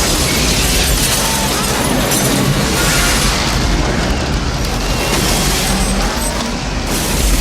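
Loud, steady storm wind: a rushing roar with a heavy, fluttering rumble.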